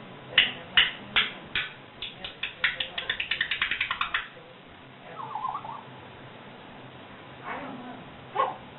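African grey parrot making a run of sharp clicking noises that start slowly and speed up to about five or six a second, then stop. About a second later she gives a short warbling call, and two brief calls come near the end.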